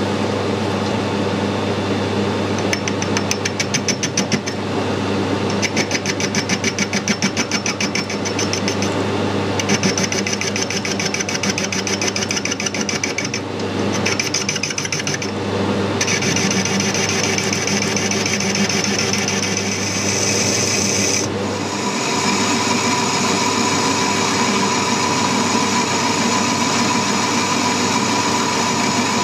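Metal lathe running with a steel tube spinning in the chuck while a cutting tool works its end, over the steady hum of the lathe's motor and gearing. The scraping of the cut comes and goes in several stretches. About two-thirds through, the sound settles into a steadier tone.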